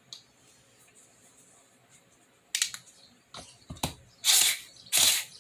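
Handling noises of small hobby parts on a workbench: scattered sharp clicks and knocks, then two loud, short scraping or rustling bursts near the end.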